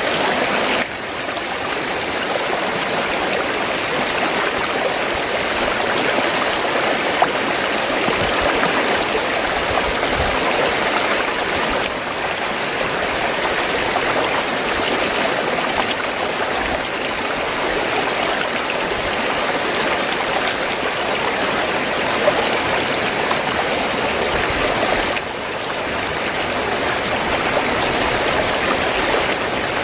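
Fast-flowing stream water rushing and gurgling in a steady, dense wash of sound, with two slight dips in level.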